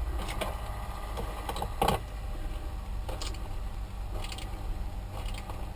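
Small PC cooling fan running with a steady mechanical noise that it still makes when held clear of its mounting bracket, which the owner puts down to a bad fan rather than the fan hitting the frame.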